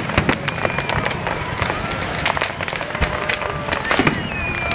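Fireworks display: aerial shells bursting in quick, irregular bangs and crackles, with a few thin whistling tones that fall slightly in pitch.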